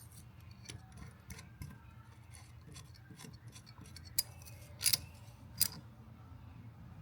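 Scattered light clicks and clinks of metal tools and parts being handled, with three sharper metallic clinks about four to six seconds in, over a low steady hum.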